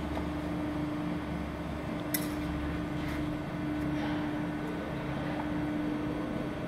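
Steady hum of a hydraulic press brake's pump unit running with the ram at rest: a constant mid tone over a low drone. A single sharp metallic clink comes about two seconds in, with fainter ticks after it.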